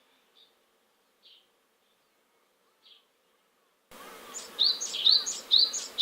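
Great tit singing: after near silence broken by a few faint high chirps, a loud repeated two-note phrase, a high note dropping to a lower one, comes in about four seconds in and repeats about five times at roughly two a second.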